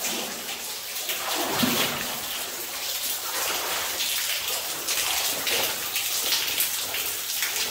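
Water dripping and raining down from the rock ceiling of a flooded mine tunnel, a dense steady patter of drops splashing into standing water. There is a brief deeper sound about a second and a half in.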